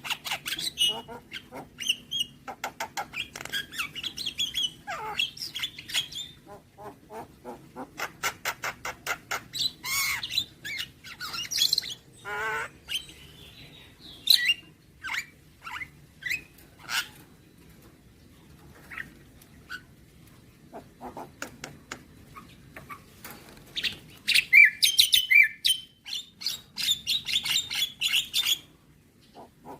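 Javan myna (jalak kebo) singing a long varied song full of imitated phrases. Rapid runs of clicking notes mix with whistles, a wavering note and harsh squawks. The song eases off briefly past the middle and ends in a loud, dense burst near the end.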